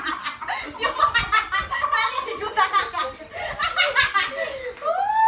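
A group of young people laughing hard together, with one voice rising and falling in a long squeal near the end.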